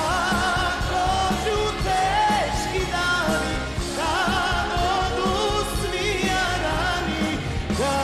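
Live band music from a Balkan folk-pop band, with drums keeping a steady beat under a wavering lead melody.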